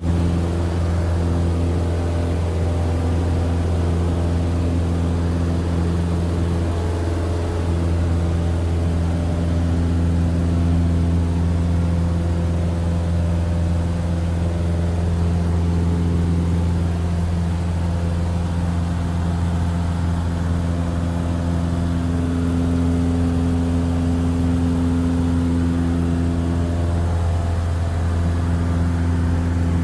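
Piper Super Cub's piston engine and propeller droning steadily in level flight, heard inside the cabin as a deep, even hum.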